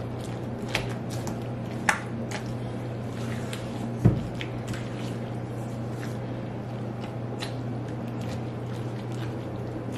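Wooden-handled spoon stirring wet shredded-apple filling in a stainless steel mixing bowl: soft squishing, with a few sharp knocks of the spoon against the bowl, the loudest about four seconds in. A steady low hum runs underneath.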